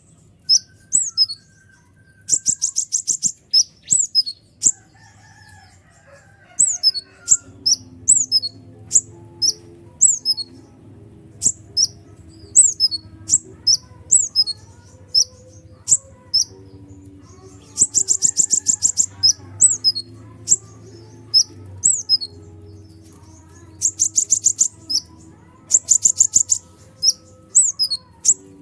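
A kolibri ninja sunbird singing: sharp, high, downward-sweeping chirps at an irregular pace, broken four times by dense, rapid, buzzy trills, about two seconds in, around 18 seconds, and twice near the end. Under it runs a faint low hum with a few faint steady low tones.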